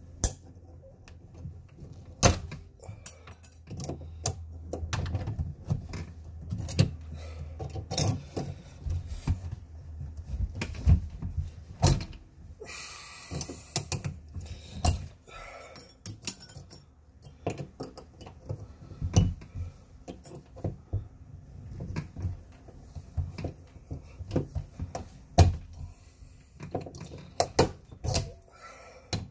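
Sheet-metal face plate of an Arrow deadbolt being torn and peeled back with needle-nose pliers: irregular metal clinks, taps and creaks, with a harsher rasping scrape of about a second and a half near the middle.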